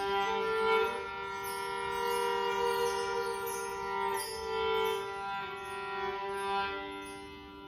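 Live meditative instrumental music: a violin playing long, slowly changing held notes over a sustained drone, easing off near the end.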